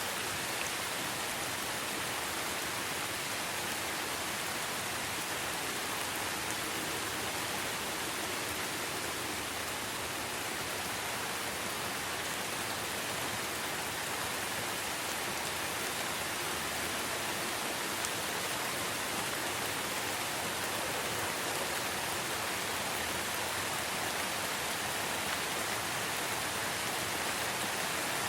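Steady rain falling in a forest, a dense even hiss with a few faint individual drop ticks.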